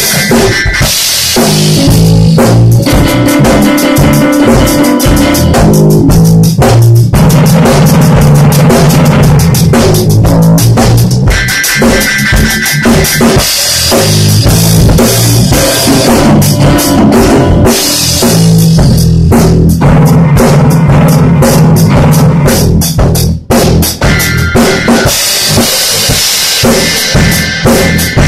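Funk groove played live on a drum kit and electric bass, with keyboard chords coming in and out, recorded loud and close. The band drops out briefly about 23 seconds in.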